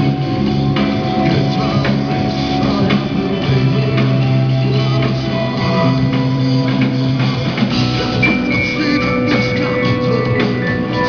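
Live rock band playing with electric guitars, keyboard and drum kit, loud and steady. A high held lead line comes in about eight seconds in.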